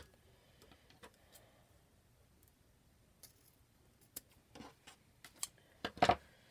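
Scissors snipping the ends of a black wired ribbon: scattered sharp clicks of the blades, with a louder knock about six seconds in.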